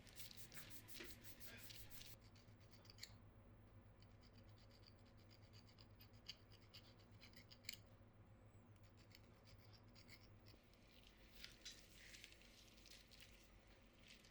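Faint scratching and small clicks of hand work on a mechanical keyboard, bunched near the start and again near the end, over a low steady hum.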